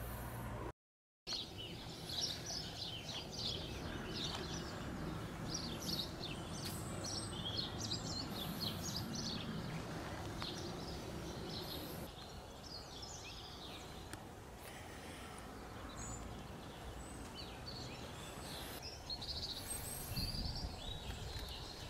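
Small songbirds chirping and singing over a steady outdoor background noise. The calls are busiest in the first half, thin out for a while and pick up again near the end, and a brief dropout of all sound comes about a second in.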